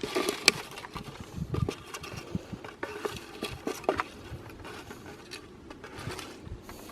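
Footsteps along a roadside with irregular crackling and light clicks and a few soft thumps.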